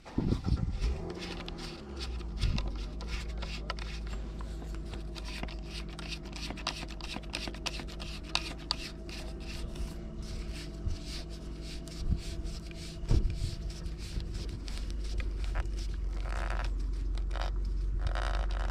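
A Penn Fierce III spinning reel being handled and fitted to a rod: rapid plastic-and-metal clicking and scraping, over a steady low rumble.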